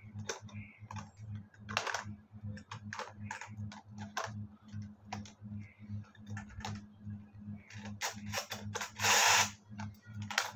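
Clockwork key of a plastic toy coin bank being wound, a steady run of ratchet clicks, with a louder rasp about nine seconds in.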